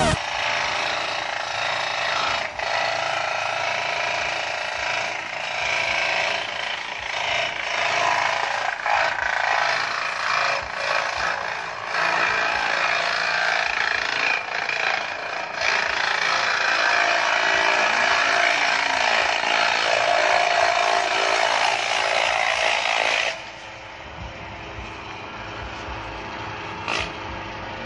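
Electric-motor banana-stem chopper shredding banana stalks: a dense, loud chopping clatter with scattered knocks. It drops to a quieter run about 23 seconds in.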